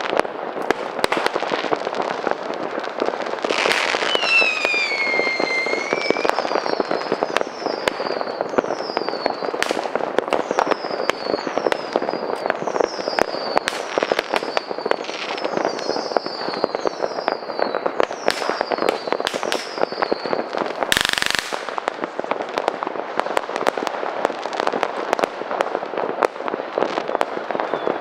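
Midnight New Year's fireworks: a dense, continuous crackle of firecrackers and bangs. Many short falling whistles of whistling fireworks sound from about four to twenty seconds in, and one loud blast comes about three-quarters of the way through.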